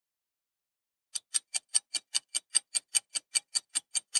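Clock-ticking sound effect counting down the answer time: after about a second of silence, rapid even ticks begin, about five a second.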